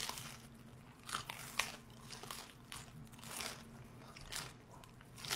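A man biting into and chewing a slice of pizza close to the microphone, short wet mouth noises coming irregularly about every half second. A faint steady low hum runs underneath.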